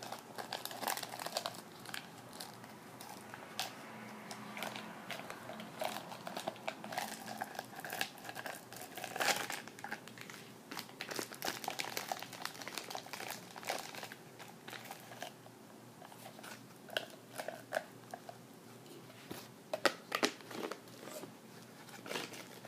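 Plastic crinkling with irregular clicks and crackles as a plastic baby bottle and its parts are handled.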